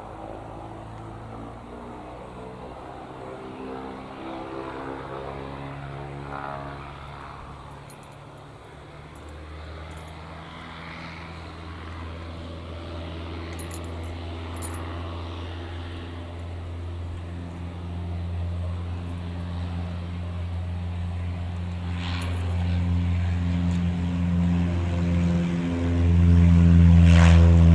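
Single-engine light propeller aircraft running, its engine drone growing steadily louder as it comes closer, with a sudden further jump in loudness near the end.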